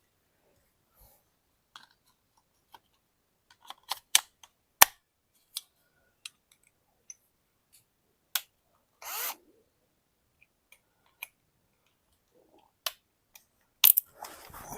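Scattered clicks and knocks of hand tools and metal mounting hardware being handled, with one short burst of scraping noise about nine seconds in.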